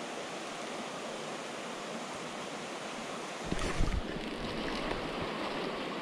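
Steady rush of flowing river water, with a brief low rumble and a couple of thumps on the microphone about three and a half seconds in.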